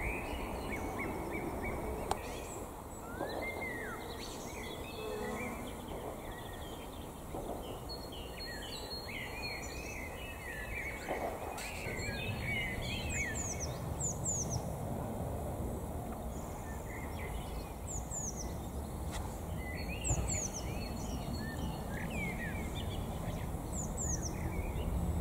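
Garden birdsong: several songbirds singing and chattering, with short high whistled notes repeated in pairs, over a steady low background noise.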